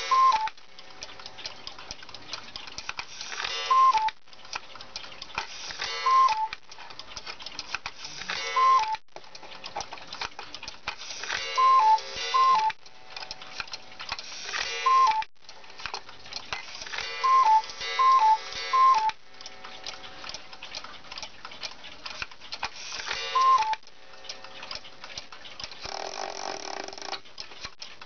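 August Schwer cuckoo clock with a Regula movement calling 'cuckoo', two falling notes from its bellows whistles, in short groups of one to three calls every few seconds as its hands are moved on through the hours. The movement ticks between the calls.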